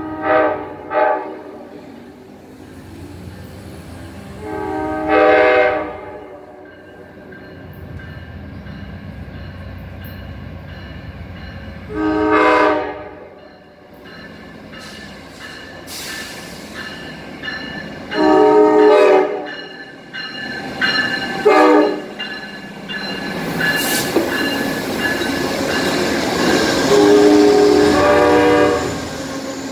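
Amtrak Silver Meteor passenger train's locomotive sounding its multi-tone horn in a series of blasts, two short ones at first, then long blasts every several seconds with a short one between. The rumble and wheel noise of the train grow over the last third as it pulls in alongside the platform.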